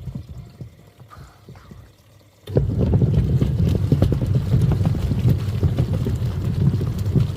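Twin-tub washing machine churning foamy water: the motor is stopped and the water sloshes faintly, then about two and a half seconds in the motor starts again with a low hum and steady splashing.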